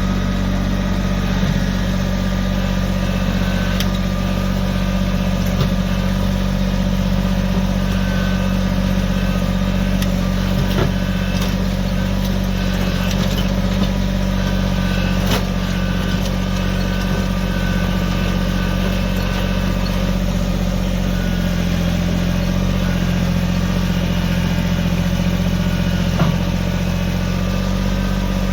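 Kubota BX25 compact tractor's three-cylinder diesel engine running steadily, with a slight change in pitch about two-thirds of the way through and a few light clicks and knocks.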